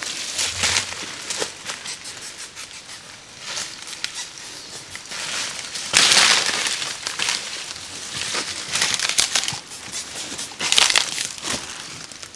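Irregular crinkling and scraping handling noises, a run of short scratchy strokes with louder crunching bursts about six seconds in and again near the end.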